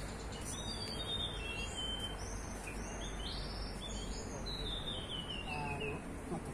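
Several small birds chirping and whistling in quick, overlapping calls, with a run of falling notes about four seconds in, over a steady low background noise.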